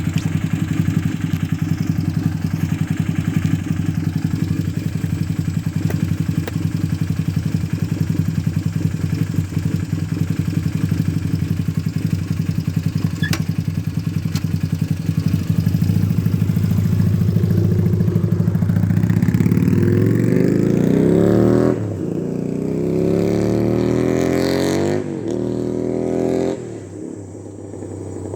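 Honda CB450 parallel-twin engine idling steadily, then revving up as the bike pulls away, with the pitch rising and dropping back three times as it shifts up through the gears, growing quieter near the end as it moves off.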